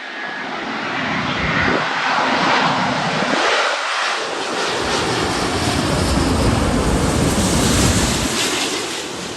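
Airbus A350-941's Rolls-Royce Trent XWB turbofans on landing approach. The noise grows louder over the first couple of seconds as the plane nears, and a deep rumble joins it about halfway through.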